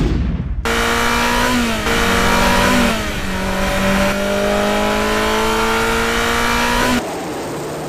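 Race car engine accelerating hard through the gears, its pitch climbing and dropping sharply at each upshift, twice in quick succession and then one long climb. It cuts off suddenly about seven seconds in.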